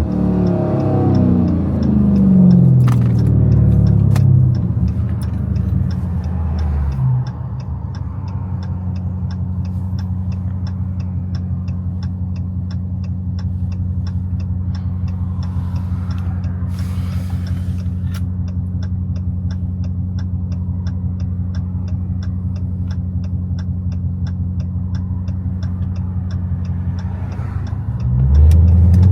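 Catless Hellcat's supercharged V8 running as the car slows, its pitch falling, then settling into a steady idle with a regular ticking over it. Near the end it revs up again.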